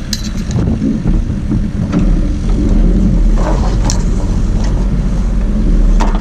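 A sailboat's engine running steadily as it motors out of the harbour, the low hum growing louder about two seconds in. A few sharp knocks and clicks of gear come over it.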